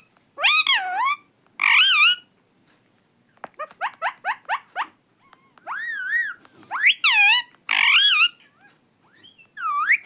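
A rose-ringed (Indian ringneck) parakeet calling: loud, high wavering calls, a quick run of about eight short rising chirps a few seconds in, more wavering calls, and a rising call near the end.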